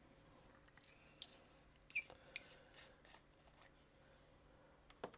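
Faint, light clicks and soft rubbing from small objects being handled during hobby painting, with a sharper double click near the end.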